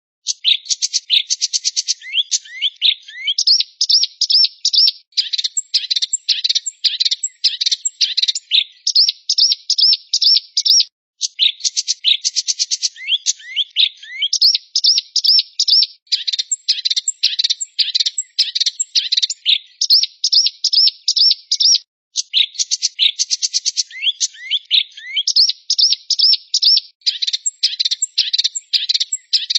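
A small songbird's recorded song: fast, high-pitched chattering trills mixed with quick rising whistled notes. The song sequence repeats, with brief breaks about 11 and 22 seconds in.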